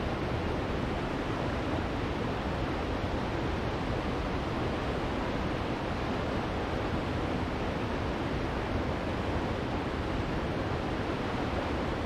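Waterfall of about ninety feet rushing steadily, an unbroken wash of water noise with no changes.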